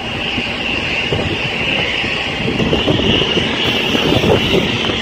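Steady vehicle noise, engine rumble with a hiss of road and air, growing slightly louder over the few seconds.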